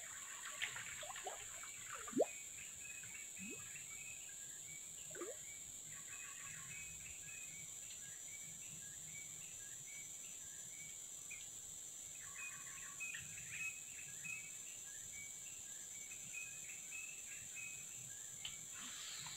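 Outdoor ambience: a steady high-pitched insect drone with many short bird chirps repeating throughout, and one short sharp sound about two seconds in.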